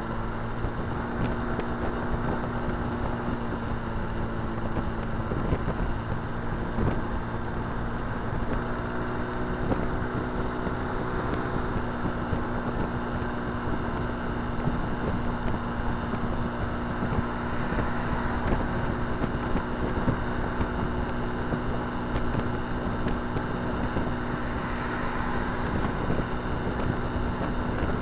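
Kymco Dink Street scooter's single-cylinder engine running at a steady cruising speed, with wind rushing over the microphone.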